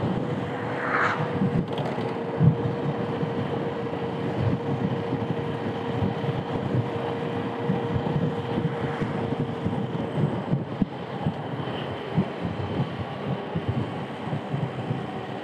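Wind on the microphone and tyre-on-road noise from an Ola S1 Pro electric scooter moving at speed while towed by a motorcycle, with a faint steady whine that fades out about two-thirds of the way through.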